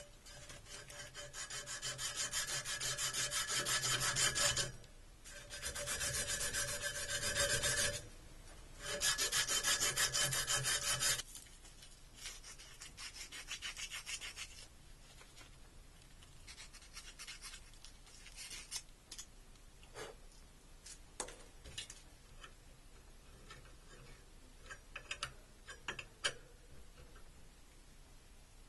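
A strip of abrasive cloth pulled rapidly back and forth around the end of a copper pipe, scouring it clean: three long bouts of fast rasping with short pauses between them, followed by scattered light clicks and taps of handling.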